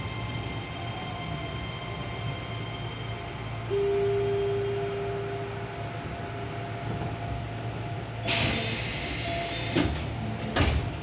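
Inside a Keio 7000 series train coming to a stop at a station: a steady low hum, a single held tone starting about four seconds in and fading, then a loud hiss of air for about a second and a half as the doors open, and two sharp clunks as they slide open.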